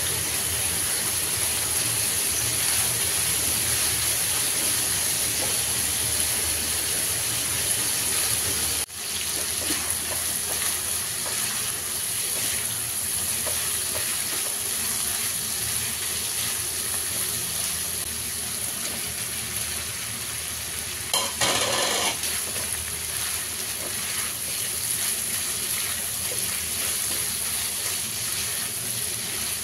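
Pork belly pieces sizzling in hot oil in a non-stick frying pan over high heat, a silicone spatula stirring and scraping them. The sizzle drops out for an instant about nine seconds in, and a short louder burst comes about two-thirds of the way through.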